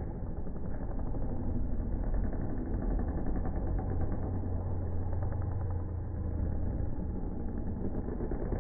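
Several motocross bikes racing on a dirt track, their engines blending into a steady drone, with one bike's rapid firing standing out for a few seconds in the middle.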